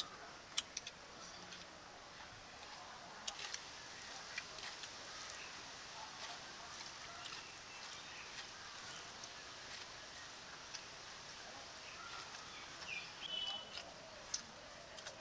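Quiet rural ambience with scattered small clicks and taps from people eating rice by hand off clay plates, and a short bird chirp near the end.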